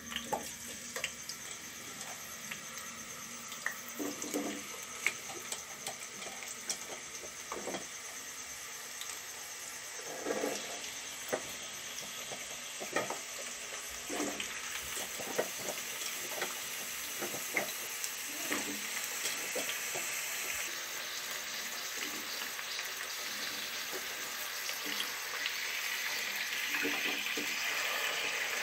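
Raw potato slices dropped by hand into hot oil in a wok, each landing with a short click or splash over a steady sizzle of frying oil. The sizzle grows louder as the pan fills with slices.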